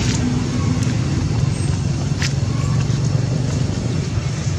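A steady, low engine drone, like a motor vehicle running, with a short click about two seconds in.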